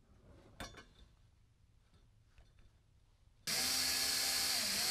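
A handheld rotary tool on a flexible shaft switches on about three and a half seconds in and runs at a steady high speed. Its pitch starts to fall just before the end as it begins to slow. A few light handling clicks come before it.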